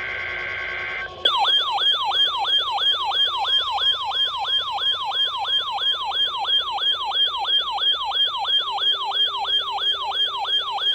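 The last second of an Emergency Alert System data burst, a buzzy two-tone warble. About a second in, an electronic alert siren starts: a sweep that falls quickly in pitch, repeating about three times a second over a steady tone, the attention signal of a required weekly test.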